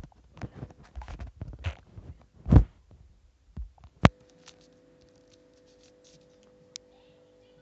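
Handling noise: irregular rubbing, scraping and thumping against the microphone, then a sharp click about four seconds in, after which a faint steady electrical hum with a few small ticks remains.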